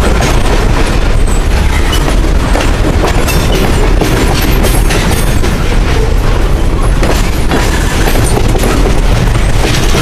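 Freight train cars, tank cars and then a loaded flatcar, rolling past close by. Steel wheels on the rails make a loud, steady, deep rumble, with a few sharp clicks and clanks over the rail joints.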